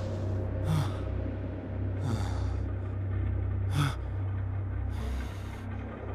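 Low, droning suspense music under a man's heavy breathing: four gasping breaths about a second and a half apart, the last one longer.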